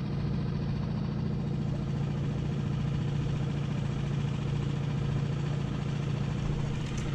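Dinghy outboard motor running steadily at low canal speed, an even low hum with no change in pitch.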